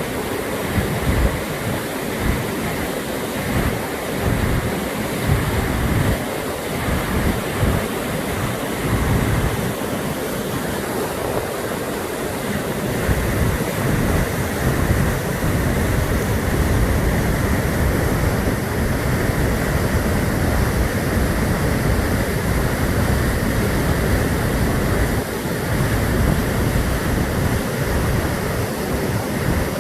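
Steady rush of a glacial river's waterfall, with wind buffeting the microphone in uneven low gusts.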